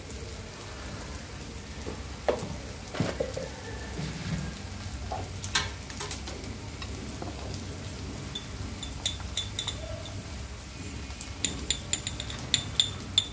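Sliced onions and sweet corn sizzling steadily in oil in a large frying pan, with a few light knocks. A quick run of small metallic clinks comes near the end.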